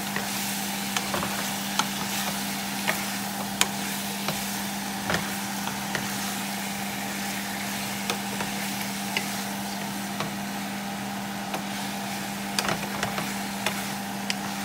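Raw chicken wings and sliced onions sizzling in hot oil in a nonstick pan while a wooden spatula stirs them, scraping and knocking against the pan in irregular clicks. A steady low hum runs underneath.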